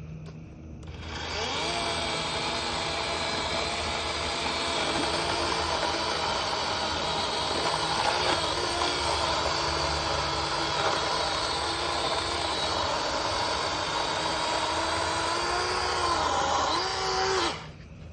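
DEWALT 20-volt XR battery chainsaw with a 12-inch bar cutting up a fallen tree limb. The electric motor's whine spools up about a second in, runs steadily with its pitch sagging now and then as the chain bites, and stops abruptly near the end.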